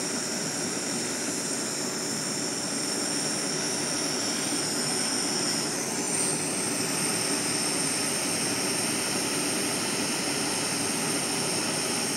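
Propane torch flame burning with a steady hiss as it heats a copper strip toward red heat for silver brazing.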